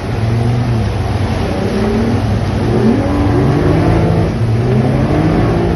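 Small motor engines running and revving up and down several times, with rising pitch at about one and a half, three and five seconds in.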